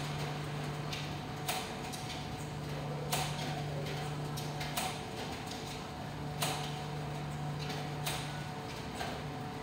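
ADC commercial tumble dryers running with a steady hum, and a knock about every second and a half as the drums turn.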